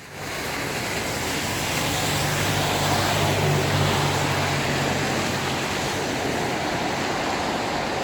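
Traffic noise: a passing vehicle's engine hum over steady road hiss. The hum swells in the middle and then fades, leaving the hiss.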